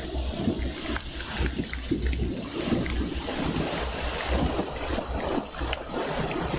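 Thunderstorm rain falling steadily, with many small drop impacts and a low rumble underneath.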